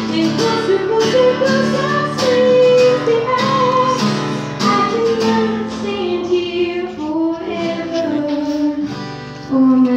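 A woman singing a song with long held notes, accompanying herself on a strummed acoustic guitar.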